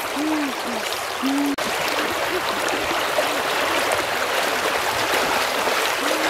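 Shallow rocky river water rushing and splashing as children wade and slap through it with their hands and feet. The water noise breaks off for an instant about a second and a half in, then carries on denser.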